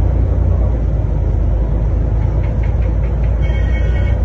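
Steady low rumble of a moving road vehicle, heard from inside the cabin. A brief high tone sounds near the end.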